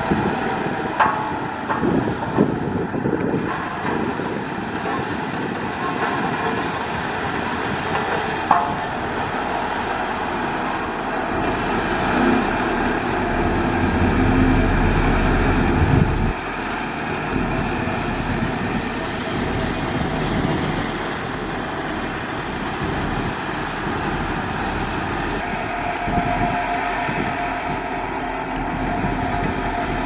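Motor grader's diesel engine running steadily as its blade spreads loose gravel. There are a few sharp knocks in the first several seconds, and about halfway through a deeper rumble swells and then drops away suddenly.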